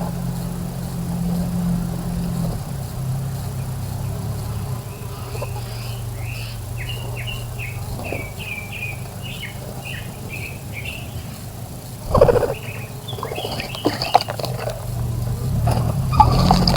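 Small birds chirping in a quick run of short high notes, over a steady low hum. A brief louder noise comes about twelve seconds in, followed by more chirps.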